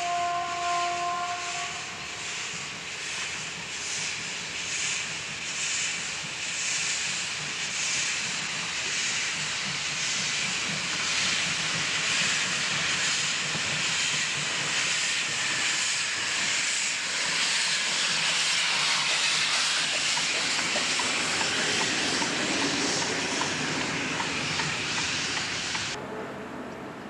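Ty3-2 steam locomotive gives a short whistle as it starts, then moves off with steady exhaust chuffs, about three every two seconds. The hiss of steam from its open cylinder drain cocks grows louder as it comes closer. Near the end the sound drops to a quieter background.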